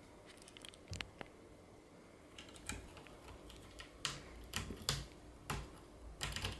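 Cat's claws scratching and catching on the sisal rope of a cat-tower post, in irregular scratchy strokes that come thicker and louder in the second half.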